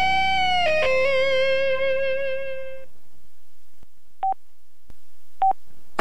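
The close of a built-in LG Voyager cell-phone ringtone in a pop/blues style: a final guitar-like note held and fading out about halfway through. Two short beeps follow, about a second apart.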